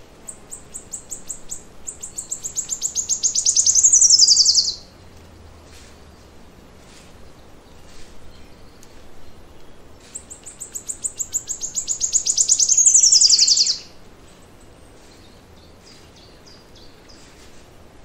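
A forest songbird singing twice. Each song is a rapid run of high notes that speeds up and grows louder for about four seconds, then ends in a quick falling flourish. The second song starts about ten seconds in, and faint short chirps sound between the songs.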